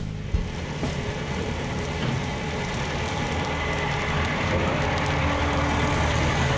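Bobcat T595 tracked skid steer running steadily, its diesel engine and machine noise gradually growing a little louder.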